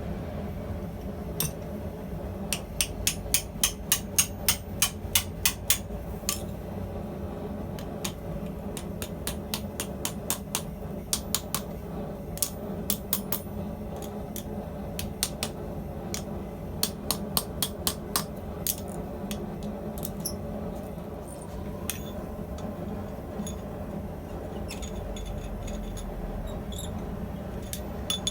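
Hand hammer striking steel on an anvil: a quick run of ringing blows, about three a second, a few seconds in, then scattered strikes that die out past the middle.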